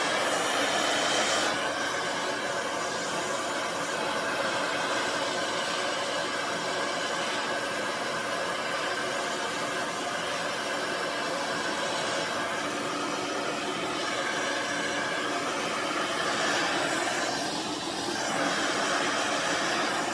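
Handheld infrared ionic blow dryer with a concentrator nozzle running steadily while drying hair: a continuous rush of air over a faint motor whine, shifting slightly in tone a few times.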